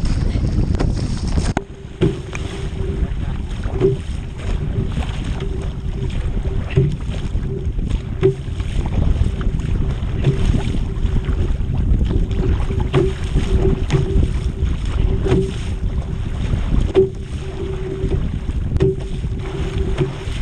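Wind buffeting the microphone and water washing along a surf ski kayak being paddled on the open ocean, with a short paddle-stroke accent about every second and a half. A faint steady hum sits underneath.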